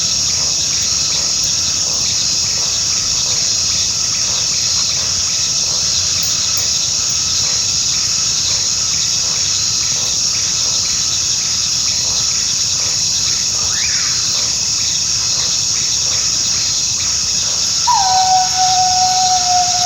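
Coyote howling over a steady chorus of crickets: a faint rising and falling call about two-thirds of the way through, then a loud, long howl near the end that slides down in pitch and holds.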